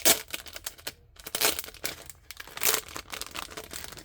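Plastic packaging crinkling in a series of short rustles as it is handled, the loudest just after the start, about a second and a half in and near three seconds in.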